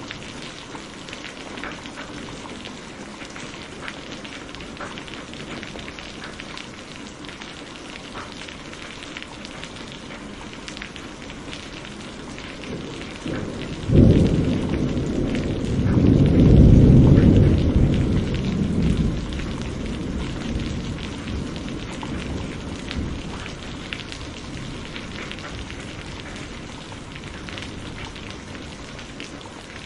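Heavy rain falling steadily. About halfway through, a sudden crack of thunder rolls into a deep rumble that swells for a few seconds and then fades away.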